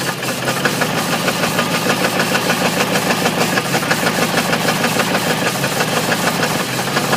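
Ford 351 Windsor V8 running steadily under a fast, rhythmic knock from a spun bearing.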